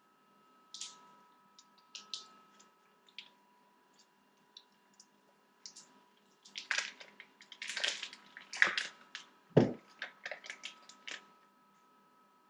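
Ground sausage and cheese being squeezed and mixed by hand, a scattered run of short wet squishes and clicks that gets busier in the second half, with a dull knock about three-quarters of the way through.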